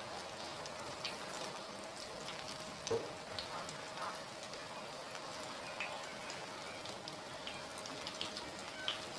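Hot oil sizzling and crackling with many small pops around breaded banana fritters frying in a pan. A single louder knock about three seconds in, as the tongs turn the fritters.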